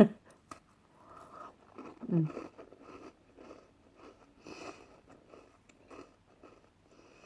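A person chewing food with the mouth close to the microphone, soft and irregular, with a brief hum of the voice about two seconds in.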